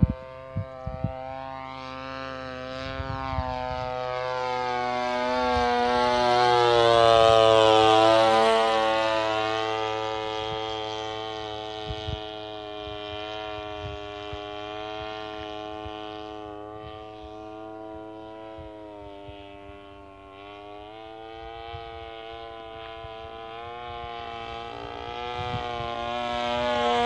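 26cc brush-cutter two-stroke engine on a flying RC model airplane, a steady buzzing drone that wavers slightly in pitch. It grows loud as the plane passes close about seven or eight seconds in, drops in pitch as it goes by, fades, and grows louder again near the end.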